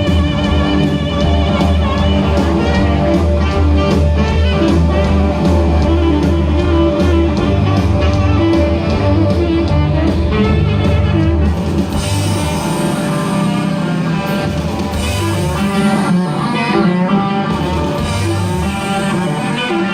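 Rock band playing an instrumental passage with no singing: electric guitar, bass guitar and drum kit. About halfway through, the sound turns brighter with more cymbal wash.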